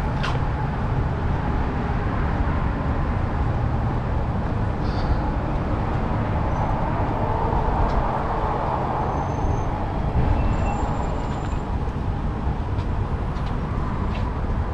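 Steady rumble of road traffic from the lanes of cars queued alongside a border-crossing footbridge.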